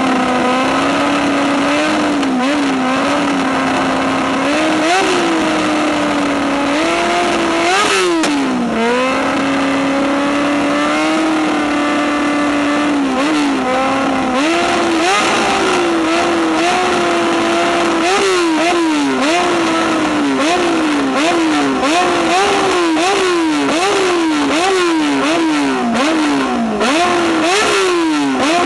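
Yamaha R6 inline-four sport-bike engine through an aftermarket slip-on exhaust, revved on the stand. It idles with a few throttle blips in the first half, then is blipped rapidly, about once a second, in the second half.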